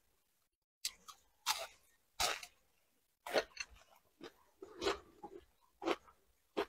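Close-miked chewing of crispy fried fish: about ten sharp, irregular crunches, starting about a second in.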